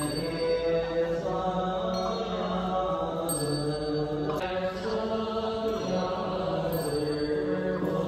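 Slow, melodic Buddhist chanting: long held notes that step from pitch to pitch every second or so, in a steady unbroken line.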